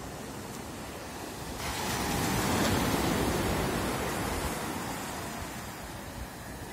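Ocean surf washing up the beach: a steady wash of sea noise, with one wave swelling in about a second and a half in, loudest around three seconds, then fading away.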